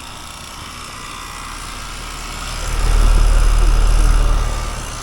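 Outdoor air-conditioner condenser unit running just after start-up, a steady low mechanical hum with fan noise. About three seconds in it swells sharply louder and deeper for a second or two, then eases back; the start-up is called terrible-sounding.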